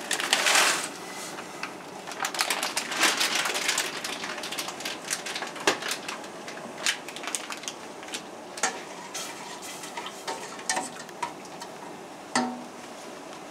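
Frozen mixed vegetables poured from a bag into a pot of boiling water, a short rush near the start, followed by a spoon clinking and scraping against the metal pot as they are stirred.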